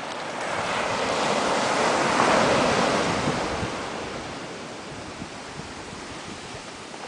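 Surf: a wave breaks and washes up the sand, swelling to its loudest about two seconds in and fading away by about four and a half seconds.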